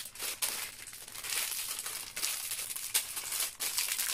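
Clear plastic packaging bag crinkling and rustling as it is handled, with irregular small crackles.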